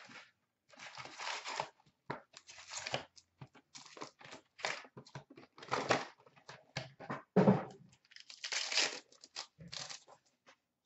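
Hockey card packaging being torn and crinkled by hand: the wrapper and packs of a 2016-17 Upper Deck SP Authentic box ripped open, in a string of short, irregular tearing and rustling noises with brief pauses between.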